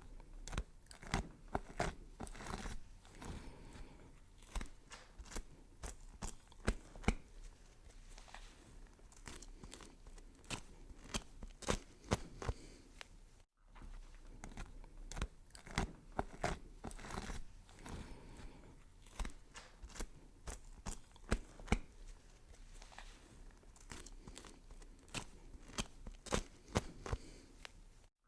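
Vegetables being chopped with a knife on a cutting board: quick, irregular cuts, several a second, with crisp crunching. The sound breaks off for an instant about halfway through.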